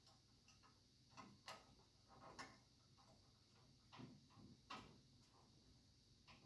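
Near silence with a handful of faint, irregular clicks and scratches as fixture wire leads are handled and twisted together by hand.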